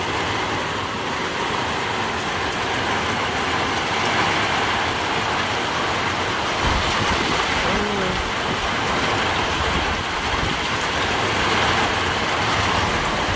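Heavy downpour: a steady, dense rush of rain drumming on the roof and awning.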